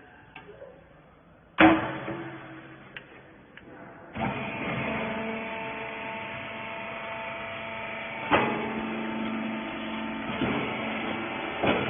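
A loud metallic bang with a short ringing, then about four seconds in the hydraulic rag baler's power unit starts up and runs steadily with a humming drone, broken by a few sharp metal clanks.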